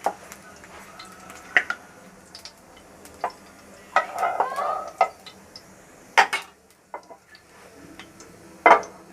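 Metal utensils knocking and scraping against a kadai, in sharp separate clinks with a busier clatter about four seconds in, over a faint sizzle of oil heating in the pan.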